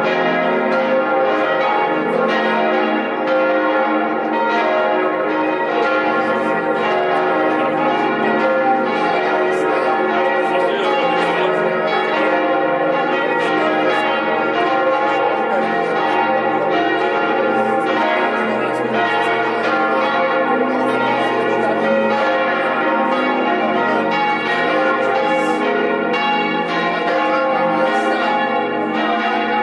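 Church bells ringing together in a continuous peal, many bell tones overlapping with strikes following close on one another at a steady level.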